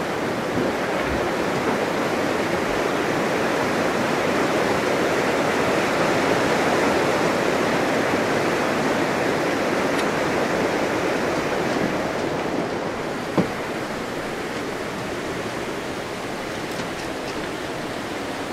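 River water rushing steadily, with one short knock about two-thirds of the way through.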